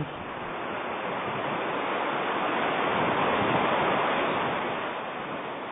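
Rushing water: an even, wordless rush that swells towards the middle and fades near the end.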